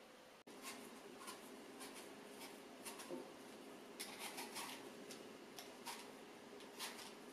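Vegetable peeler scraping the skin off an apple in quiet, irregular short strokes.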